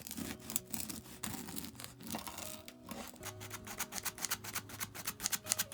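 Repeated quick rasping strokes of kitchen work on food, coming faster in the second half, over soft background music.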